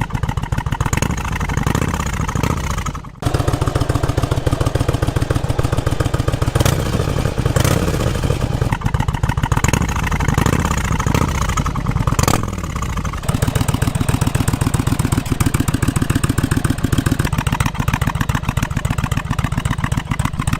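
Yamaha Virago 1100's air-cooled V-twin running through a Black Widow aftermarket exhaust, idling and revved in repeated short blips that rise and fall, then settling to a steady idle in the second half. A short break about three seconds in. The tone lacks the deep note the owner was after.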